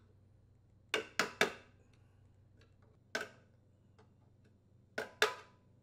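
Sharp metal taps and clicks of a flathead screwdriver against the muffler mounting bolt locking tabs as the tabs are bent out of the way: three in quick succession, one on its own, then two more close together.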